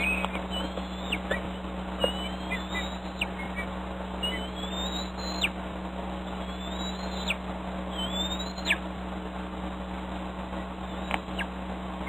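Bald eaglet calling repeatedly: about six high whistling cries that each rise steadily and then break off with a quick downward drop, typical of food begging while its nestmate feeds. A steady low hum runs underneath, and a couple of sharp clicks come near the end.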